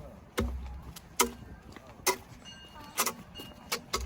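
A series of sharp knocks and bumps, roughly one a second, the first followed by a brief low rumble.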